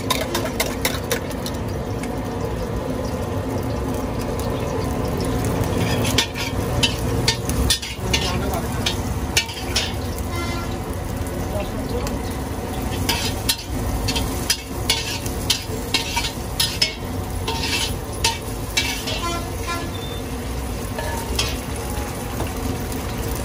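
Chicken pieces frying in hot oil in a steel wok, with a steady sizzle. A long metal spatula scrapes and clanks against the wok in repeated strokes from about six seconds in until near the end.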